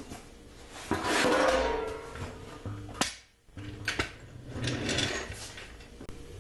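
Scraping and clattering as a jack is moved into place under the tank, with a loud sliding scrape about a second in, a sharp click about three seconds in, and more scraping and knocks near the end.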